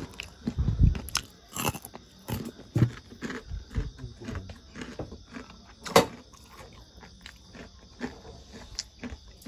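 Close-up crunching and chewing of crispy breadcrumb-coated fried instant-noodle nuggets: irregular crunches and bites, with one sharp, loud crunch about six seconds in.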